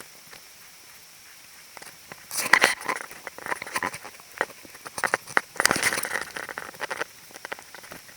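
Footsteps crunching and rustling through dry leaves and twigs on a woodland trail, in irregular bunches of crackles with short pauses between.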